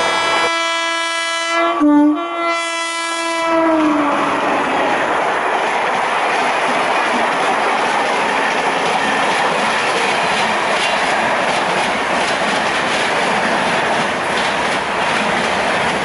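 Horn of a WAP-4 electric locomotive sounding one long blast, briefly broken about two seconds in, its pitch dropping as the locomotive passes. The coaches then clatter past steadily over the rail joints for the rest of the time.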